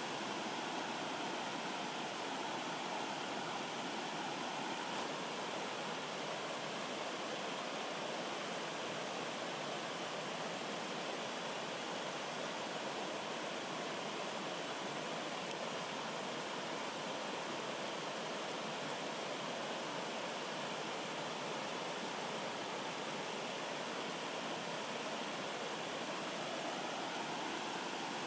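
Rocky woodland stream flowing over small cascades between boulders: a steady, even rush of water that does not change.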